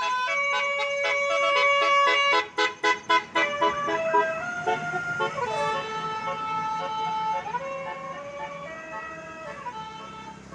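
Tour bus's Basuri "telolet" musical multi-tone horn playing a tune: a run of quick, short toots about two and a half seconds in, then longer held notes that slide from one pitch to the next.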